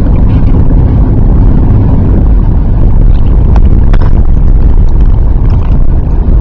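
Steady, loud low rumble of a Jeep driving, heard from inside the cabin, with two faint clicks about three and a half and four seconds in.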